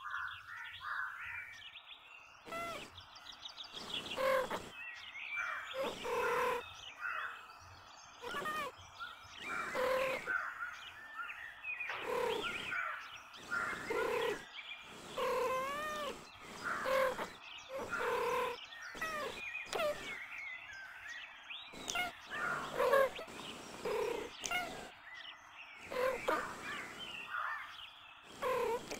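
Domestic cat meows, one after another, many rising and falling in pitch, standing in for the characters' spoken dialogue.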